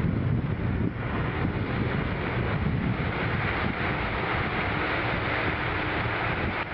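Steady, loud rumbling noise with wind buffeting the microphone.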